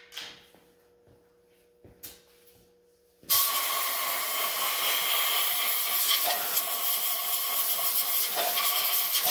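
Compressed-air blow gun blowing out a freshly honed and brake-cleaned master cylinder bore: a loud, steady hiss that starts suddenly about three seconds in, after a few faint clicks and knocks.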